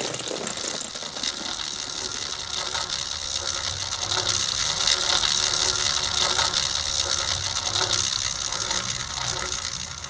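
Bicycle rear freehub ratchet ticking fast and evenly as the bike rolls along without the pedals turning, over a faint low hum.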